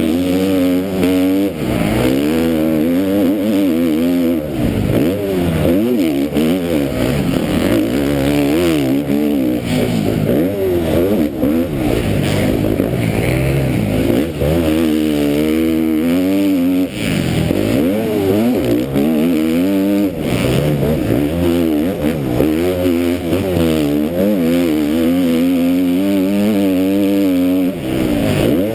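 KTM MX2 motocross bike engine racing hard, revving up and falling back over and over as the rider shifts through the gears and brakes for turns, heard close up from the rider's helmet camera.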